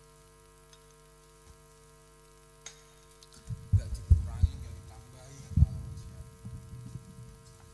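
Faint steady electrical hum from the sound system, then from about three and a half seconds in a run of low thumps and rumbles, the loudest a few times around four seconds and again near six seconds.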